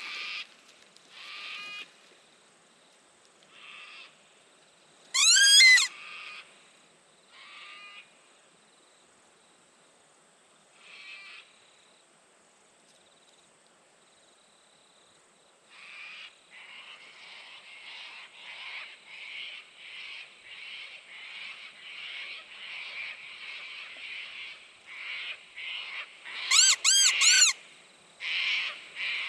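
Mouth-blown fox call squealing to draw in a fox: short high squeals every couple of seconds, a much louder rising-and-falling rip about five seconds in and another near the end, and a run of quick pulsed squeaks, about two a second, from about halfway.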